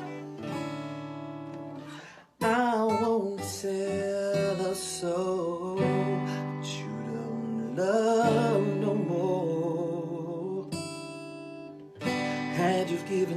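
Acoustic guitar strumming with a voice singing over it. The sound drops out for a moment about two seconds in, then guitar and voice come back, the voice holding wavering notes.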